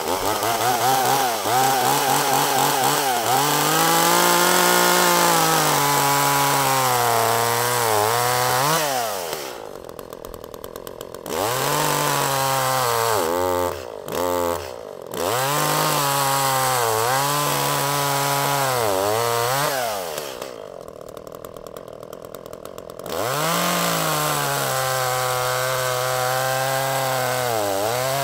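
Echo CS-400 two-stroke chainsaw at full throttle bucking a log into firewood rounds, its engine pitch sagging and recovering as the chain bites into the wood. It drops back to idle twice, about ten and twenty seconds in, then revs up for the next cut.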